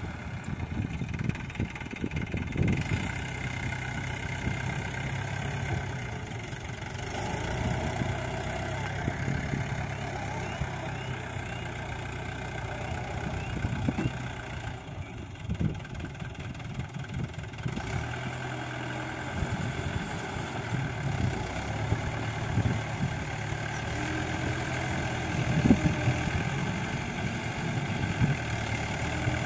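Mahindra tractor's diesel engine running steadily under load as it pulls a rotary tiller through a flooded paddy field.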